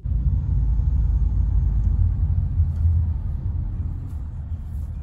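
Low, steady rumble of a car driving, heard from inside the cabin; it sets in abruptly and eases a little after about three seconds.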